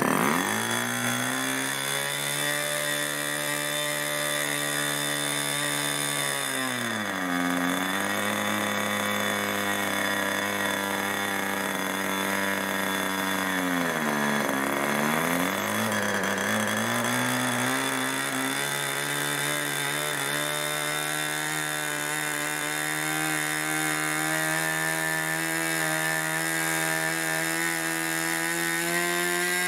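Irvine 40 MkII two-stroke ABC glow engine, swinging a 10x6 propeller, fires up at the start and keeps running. Its revs sag twice and recover, then climb steadily toward the end as the needle valve is leaned, to nearly 10,000 rpm. On its first run it is running rich.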